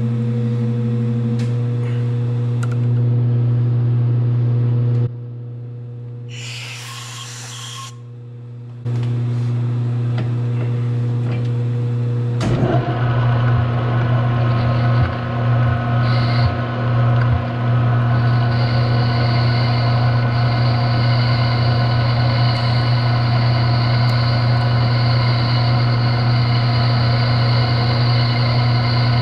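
Emco metal lathe: a steady hum, a quieter pause with a short hiss, then the spindle starts up about twelve seconds in and runs steadily. It takes a hand-fed cut on a pin, wavering at first, with a steady high whine joining later.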